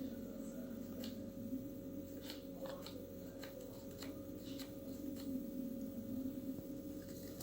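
Scattered light clicks and handling noise over a steady low hum.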